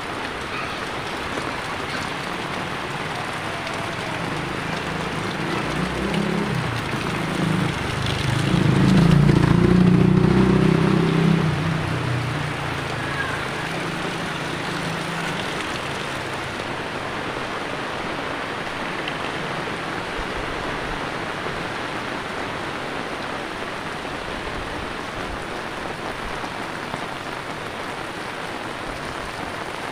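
Heavy rain falling steadily on a wet road and the buildings around it. A low rumble swells up and fades away again between about six and twelve seconds in.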